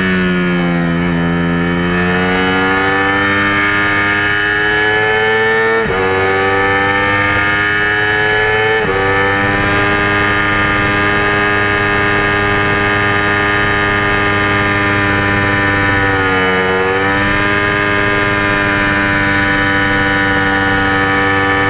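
Yamaha R25's stock 249 cc parallel-twin engine through an AHM Z1R exhaust, run hard at high revs under race load. Revs sag at first, then climb and are cut by two quick upshifts about three seconds apart, hold high and steady, dip briefly near the end and rise again.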